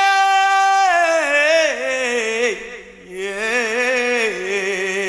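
A woman singing the unaccompanied opening of a Tamil film song on stage: a long held high note that then slides down in wavering ornaments, followed after a short break about three seconds in by a second, lower sung phrase.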